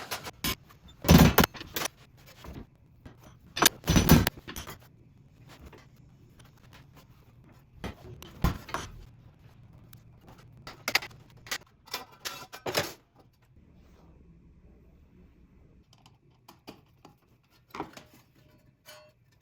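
Irregular sharp knocks and clattering rattles from parts and tools being handled, loudest about a second in and again around four seconds in, with scattered lighter clicks after.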